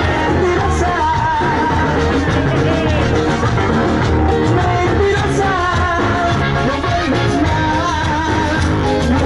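Upbeat pop music with a singing voice over a steady bass beat, played loud through the boat's overdriven loudspeakers.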